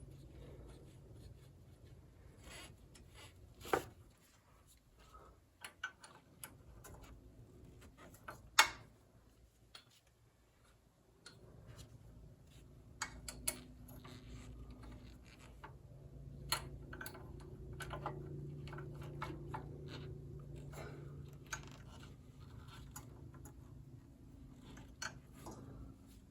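Scattered light clicks and clinks of hand tools and small metal parts being handled, with two sharper knocks within the first nine seconds. A low steady hum comes in about halfway through.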